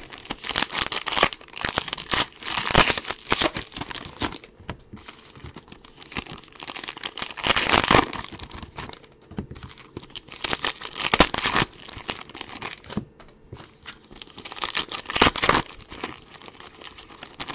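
2019-20 Panini Revolution basketball trading-card packaging being torn open and crinkled by hand, in irregular bursts of crackling with short pauses between them.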